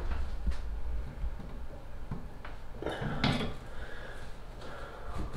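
Pliers and a screwdriver working a new shower arm tight in its wall fitting: soft knocks, clicks and scrapes of metal tools, over low handling rumble, with one louder rush of noise about three seconds in.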